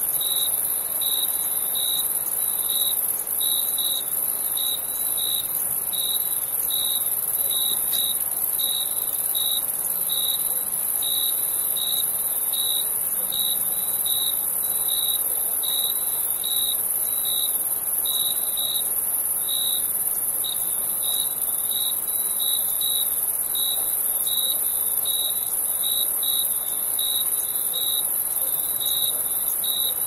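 Crickets chirping, short evenly spaced chirps a little more than one a second, over a continuous high-pitched insect trill.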